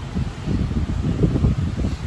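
Low, irregular buffeting rumble on the microphone, loudest a little past the middle.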